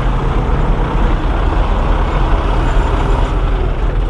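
Semi truck's diesel engine idling steadily, a loud even rumble heard close by.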